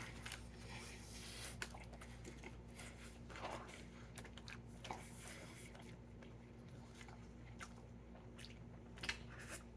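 A person faintly chewing and biting a mouthful of sandwich, with small wet clicks and soft crunches.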